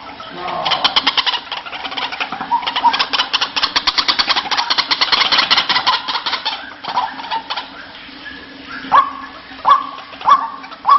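White-breasted waterhen calling: a fast rattling run of notes, about nine a second, for several seconds, then from about two-thirds of the way in a slower series of separate swooping "kru-ak" notes, roughly one and a half a second.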